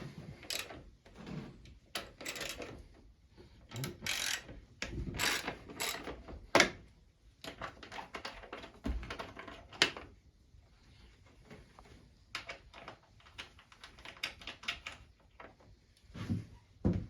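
Irregular clicks, taps and knocks of hand tools and plastic as the side-panel bolts are worked loose on a dirt bike, with two sharper knocks about six and a half and ten seconds in.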